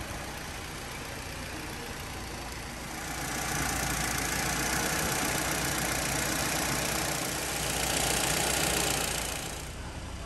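1999 Ford Fiesta Zetec S four-cylinder Zetec engine idling steadily, with a louder hiss over it from about three seconds in until near the end.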